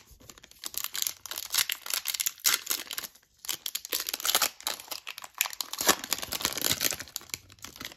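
Foil trading-card pack being crinkled and torn open by hand: dense, crackling rustle of the foil wrapper, with a short lull a little over a third of the way in.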